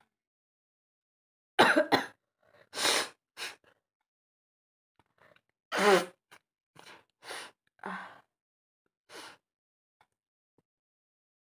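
A woman sneezing in a sneezing challenge: two loud sneezes, about two seconds in and again about six seconds in, with shorter, softer breathy bursts around them.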